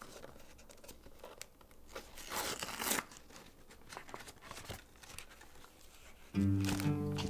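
A cardboard cake-mix box being torn open by hand, the flap ripping and the inner bag rustling, with the loudest tear about two to three seconds in. Music with steady low string notes comes in near the end.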